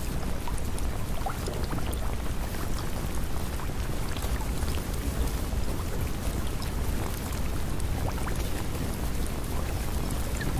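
Steady rain-like water noise with scattered small drop ticks, used as the background track of a subliminal.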